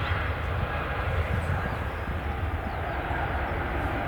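Jet airliner engines running, a steady low rumble with a broad hiss above it.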